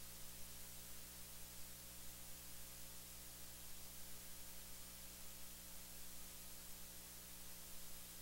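Steady hiss with a low electrical hum underneath, unchanging throughout: the recording's noise floor, with no speech or other sound over it.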